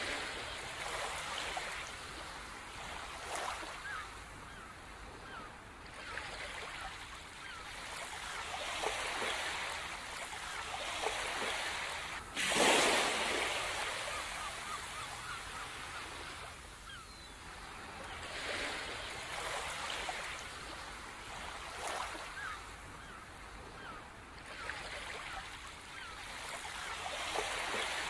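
Sea waves washing in and receding in slow swells every few seconds, one breaking louder about twelve seconds in.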